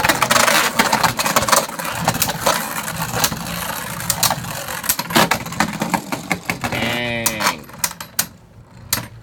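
Beyblade Burst spinning tops whirring and clashing in a plastic stadium, with many sharp clacks as they hit each other. About seven seconds in there is a falling whine, then the clashing dies down.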